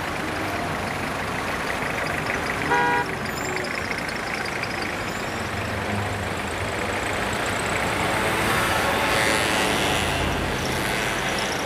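Street traffic: cars and taxis running past with a steady hum of engines and tyres, and one short car horn toot about three seconds in. A vehicle passes closer and louder near the end.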